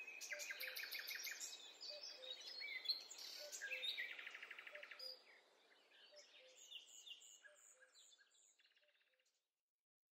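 Several woodland birds singing and chirping, with quick trills and short repeated calls. The birdsong fades out about halfway through.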